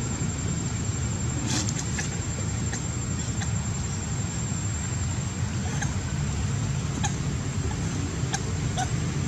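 Steady low rumble of outdoor background noise, with faint scattered clicks and a few brief high chirps.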